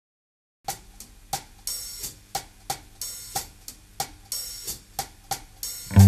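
Drum kit opening a 1970s Thai pop-rock song played from a vinyl record: a steady beat of about three hits a second with a cymbal on every fourth beat, starting after a brief silence.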